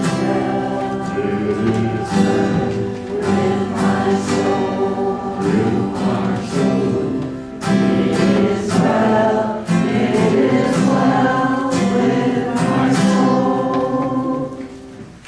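A congregation singing a hymn together with instrumental accompaniment, the last phrase dying away near the end.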